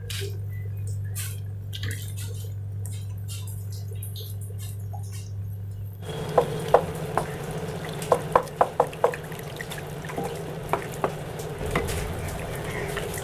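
Wooden spatula stirring and scraping instant noodles in water in a non-stick pan, with a run of sharp taps against the pan about halfway through. A steady low hum from the induction cooktop lies under the first half.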